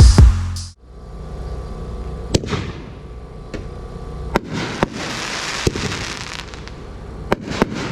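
Intro music that cuts off suddenly under a second in, then a 500 gram double-break firework cake, the Pyro Packed 'Bang Bang', firing. Its shells burst overhead as several sharp bangs at uneven spacing.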